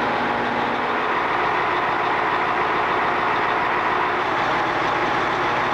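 A vehicle engine running steadily, with a constant rushing noise over it.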